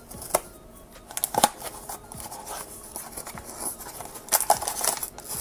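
A paperboard blind box being opened by hand: the tucked top flap pulled loose and the foil bag inside slid out, a run of scraping and crinkling rustle with sharper clicks about a second in and again past four seconds.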